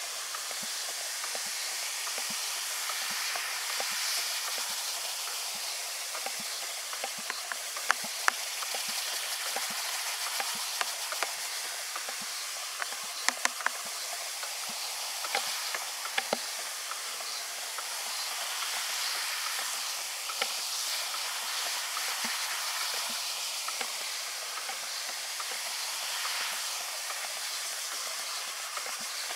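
Steady hissing fizz from flotation froth in a plastic bucket collapsing under water from a hand sprayer. A few sharp clicks come in the middle stretch.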